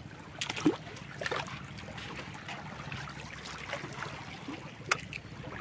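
Shallow seawater lapping and trickling among shoreline rocks at low tide, with a few short splashes and clicks scattered through.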